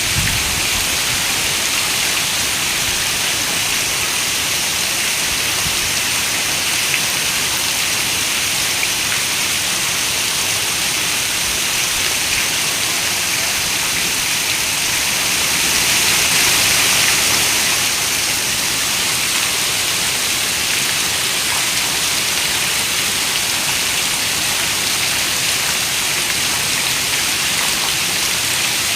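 Steady rain, an even wash of countless drops, swelling a little louder for a couple of seconds about halfway through.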